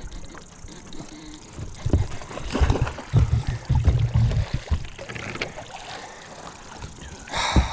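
Water splashing as a hooked bass thrashes at the surface and is scooped into a landing net, with a short loud splash near the end. Irregular low bumps and rumble from wind and handling on the microphone.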